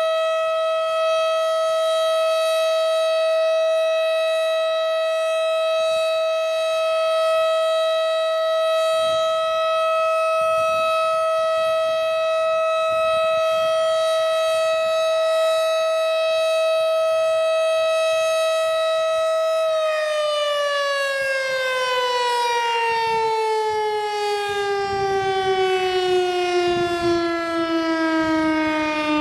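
STH-10 electromechanical outdoor warning siren sounding a steady tone on its test. About two-thirds of the way through, the pitch starts falling steadily as the siren winds down.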